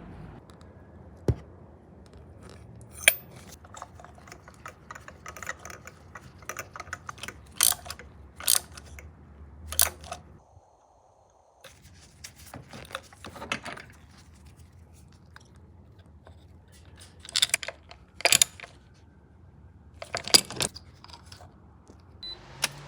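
Irregular sharp clicks and small rattles, like small hard objects or tools being handled, with a brief drop to near silence about ten seconds in.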